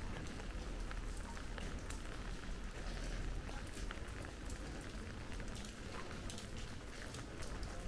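Steady rain falling on hard street surfaces: many separate drops ticking over a constant hiss.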